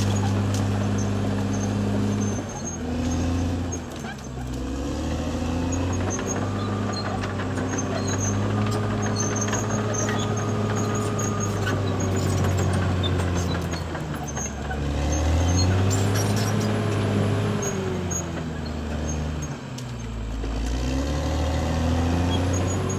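Caterpillar D6R XL bulldozer's diesel engine running under load, its pitch repeatedly rising and falling as the engine speed changes.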